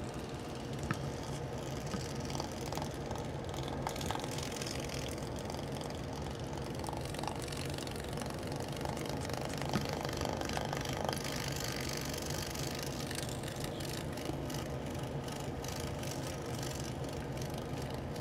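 Steady low hum of a small motor, with a few faint taps, the clearest about ten seconds in.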